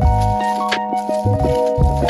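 Background music: sustained keyboard notes over a bass line, with sharp percussive hits.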